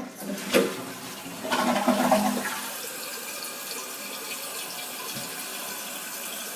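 Toto toilet test-flushed after a new flapper was fitted: a click about half a second in, a loud rush of water at around a second and a half, then a steady hiss as the tank refills.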